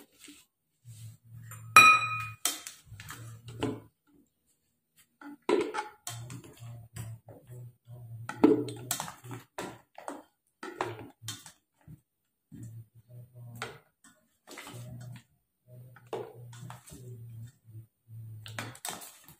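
A plastic spoon scooping peeled rambutan from a stainless steel bowl and dropping it into a plastic jar: irregular clinks, scrapes and soft wet knocks. About two seconds in, the spoon strikes the steel bowl, which rings out once.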